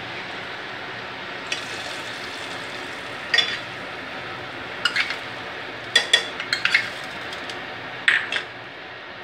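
Steel ladle and small tempering pan clinking against a stainless steel pot as the hot tempering is tipped and scraped into the tamarind gravy, a series of sharp clinks that bunch together about six to seven seconds in. A steady hiss runs underneath.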